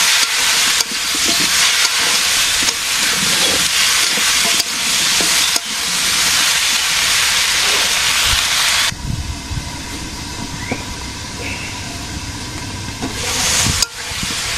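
Fish frying in hot oil in a pan, sizzling loudly and steadily. About nine seconds in the sizzle drops off suddenly to a quieter hiss with a few low knocks, then swells again near the end.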